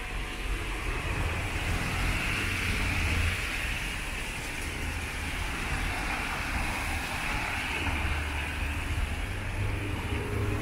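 Street traffic on a wet road: passing vehicles' engines rumble under a steady tyre hiss. The hiss swells a couple of seconds in and again near the end as vehicles go by.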